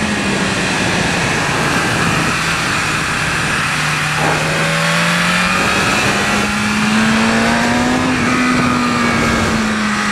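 BMW S1000RR inline-four sport-bike engine on a track lap, under heavy wind roar on the helmet microphone. The engine note falls at first, climbs again through the middle, and drops back near the end.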